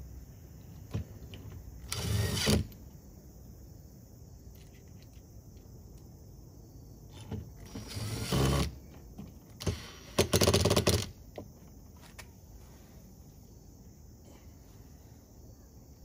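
Cordless drill driving screws into an RV door latch plate, in three short runs with small clicks between them.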